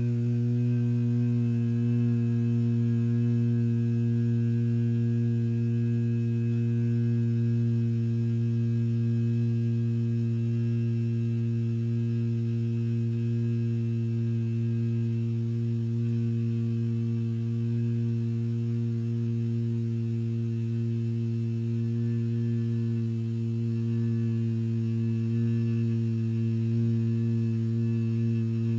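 A long, unbroken, low nasal 'nnnnn' hum held at one steady pitch, the drawn-out 'N word' of the meme sound effect.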